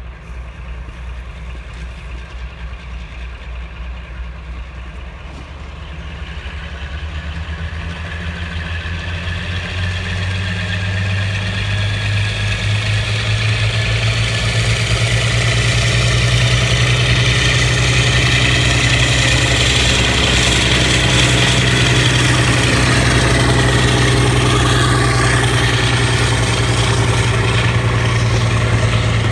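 Class 52 'Western' diesel-hydraulic locomotive's twin Maybach V12 engines working under load as it hauls a train toward and past. The steady low engine note grows louder over the first half. A falling pitch comes as the locomotive passes close, about two-thirds of the way through, and the coaches roll by near the end.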